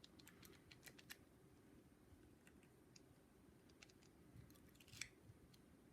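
Faint, scattered light clicks of a lock pick and tension wrench working the pin tumblers of an ABUS 72/40 padlock, over near silence.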